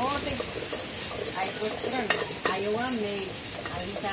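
Coffee beans being stirred with a wooden spoon in a black pot over a wood-fired stove as they roast: repeated dry scraping and rattling strokes of the beans against the pot.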